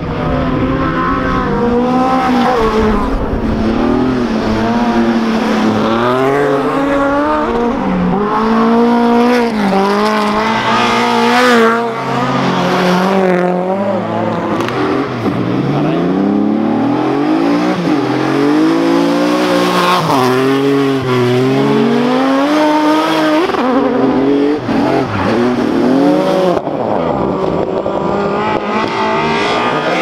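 Rally car engines being driven hard on an ice track, revving high, climbing through the gears and dropping on each lift, again and again as the cars slide through the corners.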